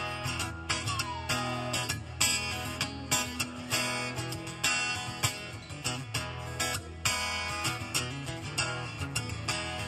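Solo acoustic guitar playing an instrumental passage, a run of quick picked notes over held bass notes, with no singing.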